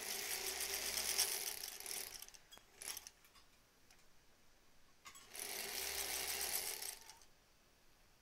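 Sewing machine stitching through layered cotton fabric in two short runs of about two seconds each, stopping in between, with a click in the pause.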